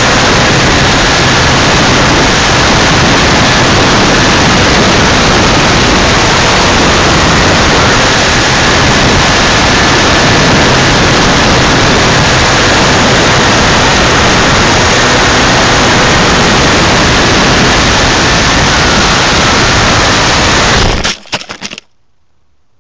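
Loud, steady wind rush with a faint motor whine, heard through the wing-mounted keychain camera's microphone on an 800 mm foam T-28 RC plane in flight. About 21 seconds in, the sound sputters briefly and cuts off as the plane comes down in the trees.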